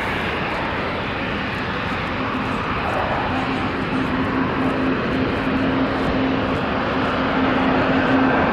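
Eurofighter Typhoon FGR4 jet's twin Eurojet EJ200 turbofan engines: a steady jet noise that grows slowly louder as the aircraft comes closer, with a faint steady hum joining about two seconds in.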